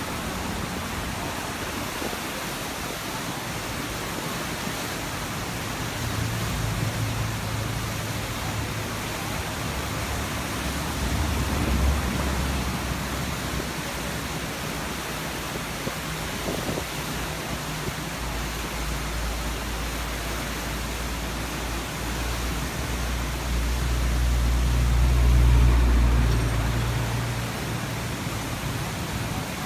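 Fast, turbulent floodwater rushing over a spillway: a steady roar. A low rumble swells in and out under it, loudest near the end.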